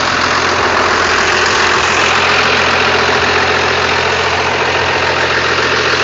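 Blue Bird party bus engine idling steadily.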